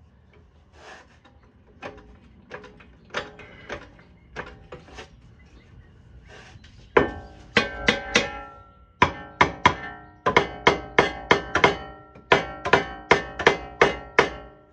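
Hammer blows on the steel front suspension of a Jeep Grand Cherokee WK, each one ringing. Light scattered knocks come first; then, from about seven seconds in, a long run of hard strikes in quick bursts of about three a second, hammering the suspension arm down so its bolt can be started.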